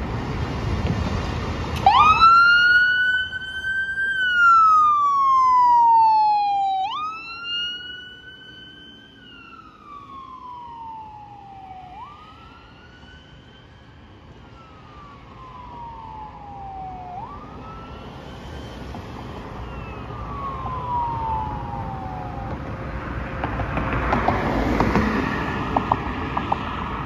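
Ambulance siren starting up and sounding a wail: each cycle rises quickly, then slides slowly down, repeating about every five seconds. It fades as the ambulance drives away and stops a few seconds before the end. Road traffic noise grows louder as cars pass near the end.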